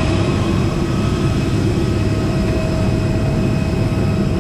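Parked jet airliner running on the apron: a loud, steady rumble with a constant whine held over it.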